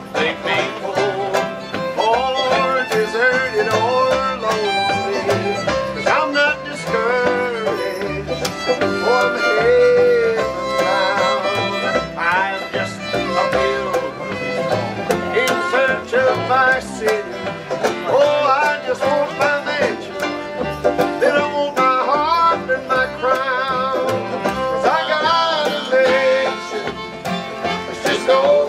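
Live acoustic bluegrass band playing: a fiddle carries a sliding, wavering melody over strummed guitar and upright bass.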